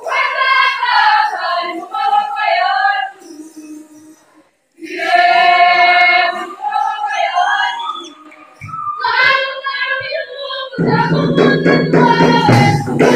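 A group of high voices sings short unaccompanied phrases with brief pauses between them. About eleven seconds in, a fuller, louder section with a steady beat comes in under the singing.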